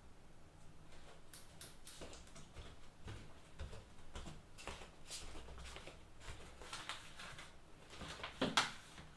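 Faint scattered knocks and rustles of a person moving about and handling papers and small objects, with the loudest clatter near the end.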